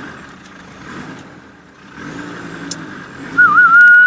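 A vehicle engine running low and steady, then over the last second a loud human whistle with a wavering pitch, breaking off and starting again near the end, the kind of whistle used to drive cattle on.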